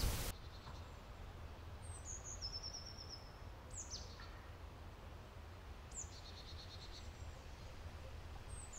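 Faint birdsong: four or five high calls, some sliding quickly downward and some stuttering trills, spread a second or two apart over a low steady rumble.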